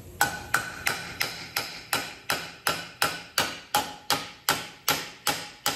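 Hammer blows on sheet steel in a steady rhythm, about three a second, each strike ringing briefly. The steel is being hammered to bend it by hand.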